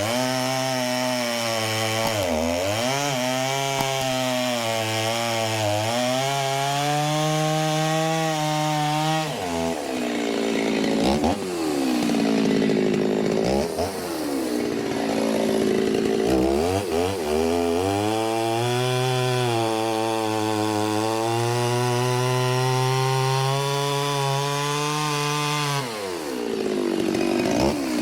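Stihl two-stroke chainsaw bucking oak logs into firewood rounds at high revs. Its pitch sags repeatedly as the chain loads up in the cut, then swings back up between cuts.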